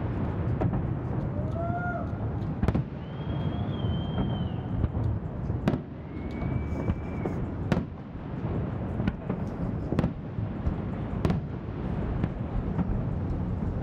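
Fireworks: aerial shells bursting in sharp, irregular bangs, about one every second or two, over a continuous low rumble.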